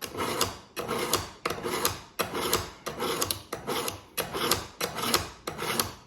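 Dull fillet knife being pulled again and again through an EdgeMaker Pro hand sharpener: a rasping scrape of steel over the sharpening posts on each pull, about nine strokes at roughly one and a half a second.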